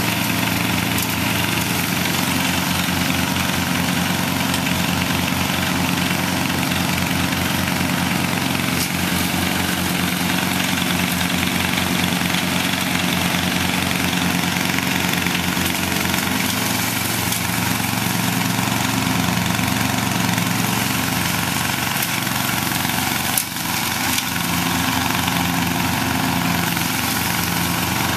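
Riding lawn mower's engine running steadily, with one brief dip in level late on.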